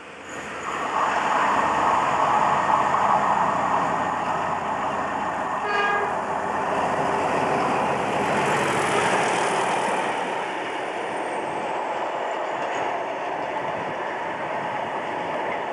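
A Class 31 diesel locomotive passes at speed hauling tank wagons. The engine noise swells in about a second in, there is a brief horn toot about six seconds in, and then the steady rumble of the wagons going by.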